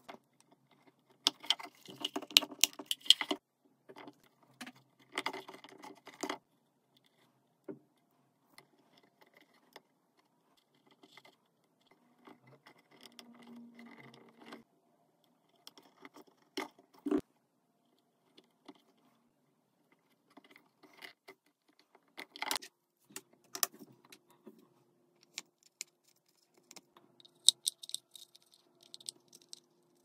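A wooden puzzle box being handled: small wooden parts clicking, knocking and rattling, in short clusters with scattered single knocks between.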